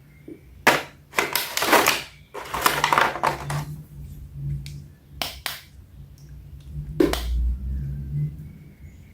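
Toy packaging being handled close to the microphone: irregular crinkling of plastic and cardboard with sharp clicks and knocks, in several short bursts.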